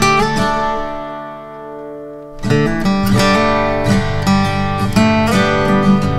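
Background instrumental music of plucked notes. It thins and dips quieter about a second in, then comes back fuller about two and a half seconds in.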